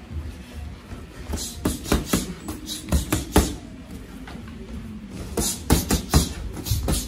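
Boxing gloves smacking on gloves and arms as two boxers trade punch combinations in a catch drill, coming in three quick flurries of sharp hits, over background music.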